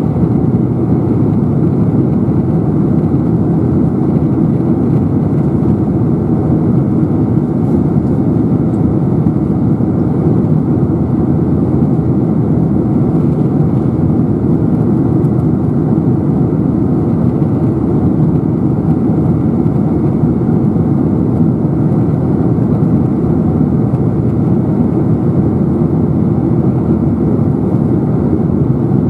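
Boeing 747-400 in flight, heard inside the passenger cabin beside the wing: a steady, loud, deep rush of engine and airflow noise that does not change.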